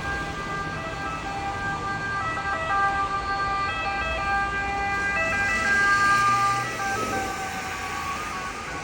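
Emergency vehicle siren switching back and forth between steady notes. It grows louder to a peak about six seconds in, then fades, over the low hum of street traffic.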